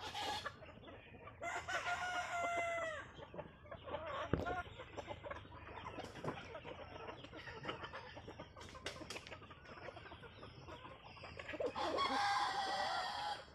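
A flock of desi village chickens clucking continuously, with roosters crowing twice: one long crow about a second and a half in and another near the end.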